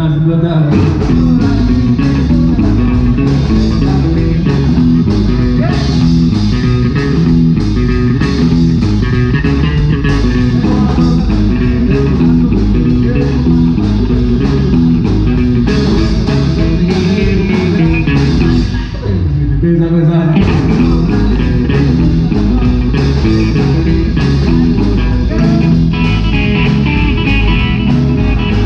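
Live rock and roll band playing: hollow-body electric guitar, electric bass and drum kit, with a brief break about two-thirds of the way through.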